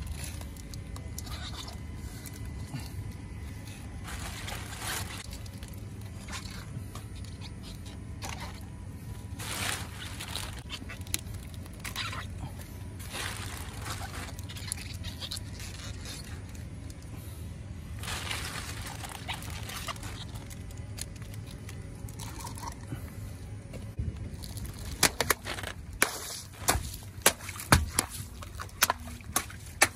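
Water-filled modelling balloons bursting under a car tyre: a string of sharp pops with splashing water near the end. Before that, scattered scraping and rustling of the rubber balloons over a steady low rumble.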